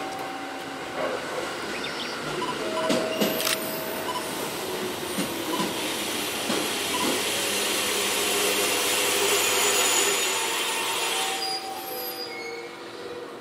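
JR 205 series 3100 subseries electric train running past below, with a few clicks early on, then a rising hiss of wheels on rail that is loudest about ten seconds in and drops away sharply near the end.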